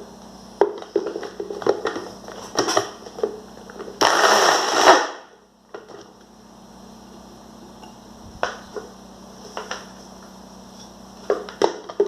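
Clicks and knocks of plastic blender parts being handled. About four seconds in, the Arno blender's motor runs for about a second and cuts off abruptly.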